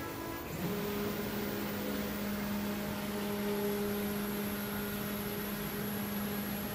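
Stepper motors of a DIY CNC plasma table driving the gantry across the table, a steady whine that resumes about half a second in after a short break.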